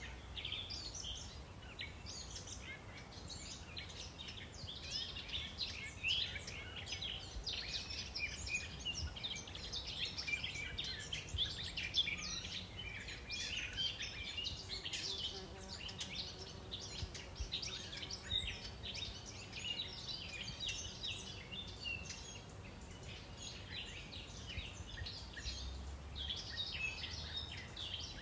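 Many small birds chirping and twittering at once, a dense, continuous chorus of short high calls over a low background rumble.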